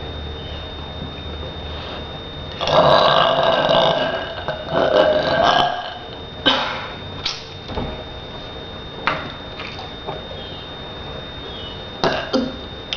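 A person forcing burps after drinking cold water. One long burp comes about two and a half seconds in, then a shorter one, followed by a few brief clicks.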